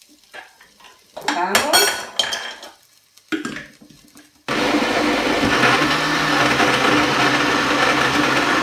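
A few clinks and knocks, then about halfway through a countertop jug blender switches on suddenly and its motor runs steadily, puréeing cooked pumpkin and cheese into a cream.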